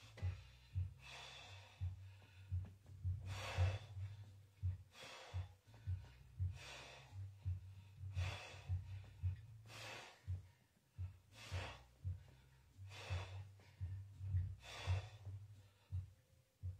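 A man breathing hard through a set of dumbbell presses, blowing out a sharp breath with each rep, about one every one and a half seconds.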